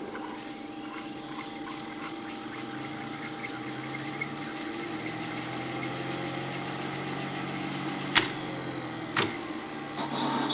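Sony AV-3400 half-inch reel-to-reel video tape recorder rewinding: its motor and spinning tape reels make a steady whirring hum that slowly grows louder. Two sharp clicks about a second apart come near the end.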